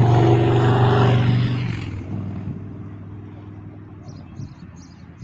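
Jetstar airliner's engines passing close, loud with a steady hum for the first couple of seconds, then fading away as the aircraft moves off.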